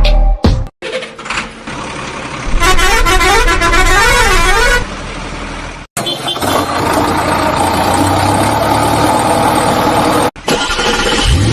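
Vehicle horn and siren-like sound effects: a warbling tone that swings up and down, over steady engine-like noise. The sound cuts off and changes abruptly three times.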